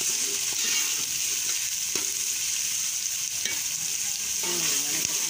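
Chopped onions sizzling in hot ghee in an aluminium pot, a steady frying hiss, while a steel ladle stirs them and now and then clicks against the pot.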